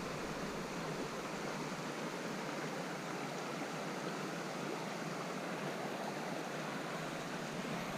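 Steady, even rushing of flowing creek water.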